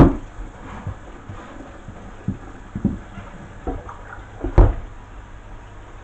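Tap water running into a stainless steel sink while a tumble dryer condenser unit is scrubbed with a brush, with sharp knocks of the metal unit against the sink, the loudest right at the start and about four and a half seconds in.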